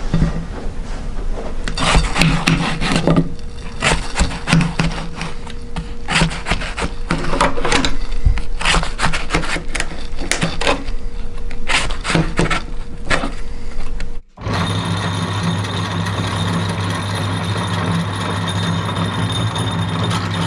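A knife slicing a watermelon on a ceramic plate: a run of short, sharp cutting and scraping sounds. After a sudden break about two-thirds of the way in, a power-driven meat grinder with a large flywheel runs steadily with a hum and a whine.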